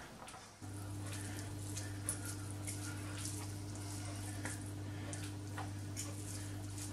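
Faint scraping and clicking of two metal forks shredding cooked chicken breast on a plastic cutting board, over a steady low hum that starts suddenly about half a second in.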